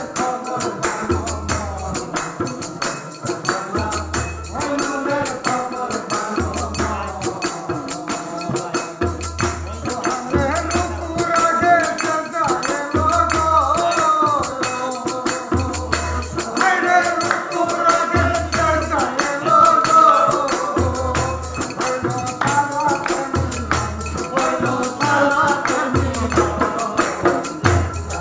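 Live Bengali folk song. A man sings over a plucked dotara, with a laced barrel drum beating a steady deep pulse, jingling hand percussion and hand clapping.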